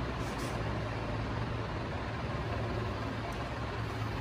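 Steady low hum with an even hiss of background room noise.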